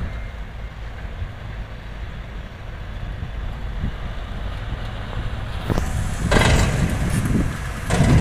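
Diesel engine of a loaded dump truck running low and steady as the truck drives slowly across the site, with loud hissing bursts about six and eight seconds in.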